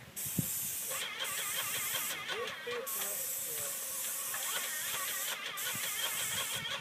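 Paint spray gun hissing in bursts as the trigger is pulled and released. It cuts out briefly about a second in, for most of a second from about two seconds in, and again near the end.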